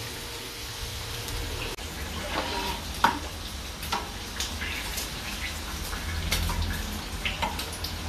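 Cookware clatter. First a spatula stirs rice in an aluminium wok. Then come several sharp metal clinks as a ladle and a wire strainer basket are worked in a large aluminium stockpot of broth, over a steady kitchen hiss.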